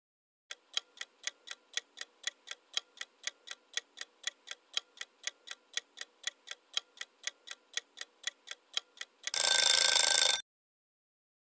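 Clock-ticking timer sound effect, about four ticks a second, counting off the answer time. It ends in a louder timer alarm about a second long.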